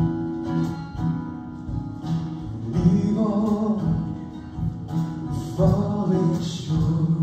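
Music: a singing voice over strummed guitar accompaniment, with two sung phrases.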